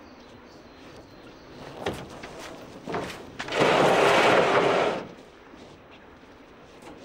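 Boxes being handled on a truck's wooden bed: two knocks, then a loud scrape of about a second and a half as a box is dragged across the bed.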